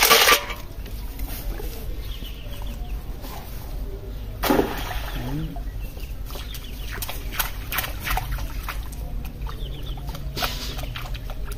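A wire snail rake being handled: a loud rattle at the start as it is worked over a metal bucket, then the rake thrown out on its rope into a pond, with a splash about four and a half seconds in and another about ten and a half seconds in, and short knocks as the rope is pulled. A chicken clucks briefly.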